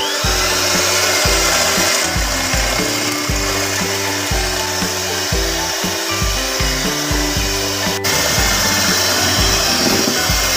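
Electric hand mixer running steadily at speed, its beaters whipping eggs, sugar and emulsifier in a stainless steel bowl until the mixture turns pale and fluffy. Background music with a steady beat plays beneath it.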